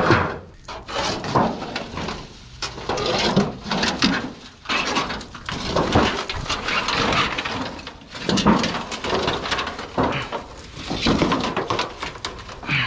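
Corrugated metal roofing sheets being gripped, shifted and lifted off dry leaf litter: uneven scraping, rattling and rustling with sudden knocks.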